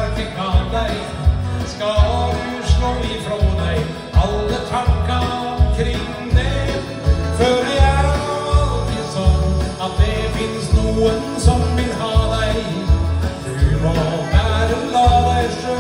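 A man singing a song live into a handheld microphone over a recorded backing track, with a steady bass beat about one and a half times a second.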